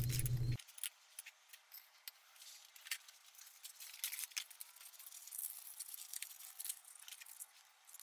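Faint, scattered light clicks and scratching as a square steel tube canister is handled.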